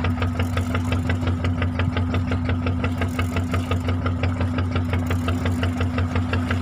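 Fishing boat's engine running at a steady low speed with an even knock of about six beats a second, over a constant low hum.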